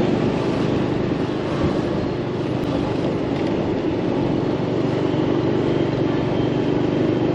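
Steady drone of engines and road noise in city street traffic, with an engine hum that grows a little stronger in the second half.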